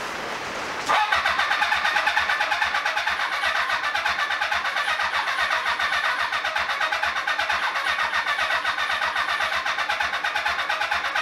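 Motorcycle engine being turned over on its electric starter, cranking steadily at about five pulses a second from about a second in, without catching: a sign of no spark or no fuel getting through yet.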